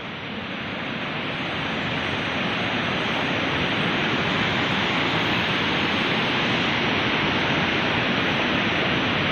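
Steady rush of flowing river water, swelling over the first couple of seconds and then holding even.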